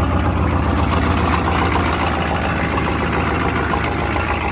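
GM 6.5-litre turbo diesel V8 idling steadily seconds after a cold start, the engine still cold.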